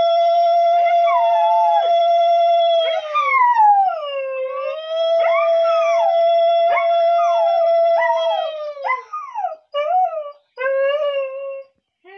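Conch shell (shankha) blown in two long, steady blasts, each sagging in pitch as the breath runs out, then a few short blasts near the end. A higher sliding, wavering wail runs over the long blasts.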